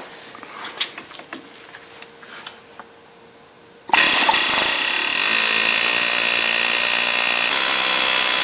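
Pneumatic air hammer with a chisel bit cutting the heads off the factory rivets that hold the upper ball joint to the control arm. A few light metal clicks come as the bit is set against the rivet, then about four seconds in the tool starts hammering, loud and steady, with a metallic ringing.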